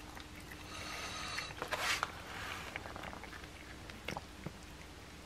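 A cat chewing and tearing at a raw boneless chicken thigh: wet chewing with scattered short clicks and smacks. A louder brief rustling hiss comes about two seconds in.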